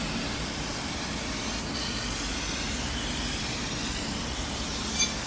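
Smoke-extraction fan over a CNC laser engraver running with a steady whooshing hum, drawing the laser smoke away. A brief high blip comes near the end.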